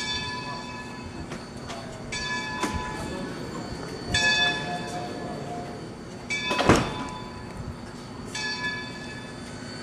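Steam locomotive No. 26's bell ringing slowly, one stroke about every two seconds, five strokes in all. A single loud thump falls about two-thirds of the way through.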